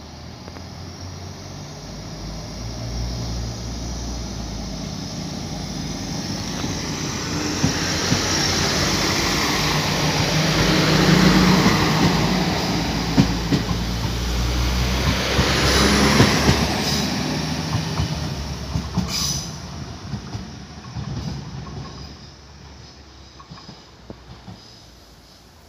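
Regional diesel multiple unit passing close by: its engine and running gear grow louder as it approaches, are loudest with sharp clicks of the wheels over rail joints as it goes past, then fade as it pulls away.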